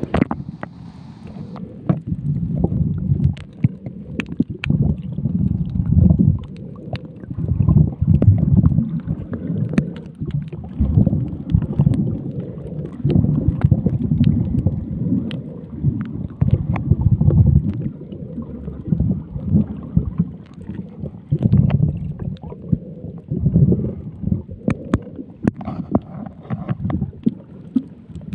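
Muffled underwater water noise heard just below the surface while snorkeling over a coral reef: a low rumble that surges and fades every second or two, with many short sharp clicks scattered through.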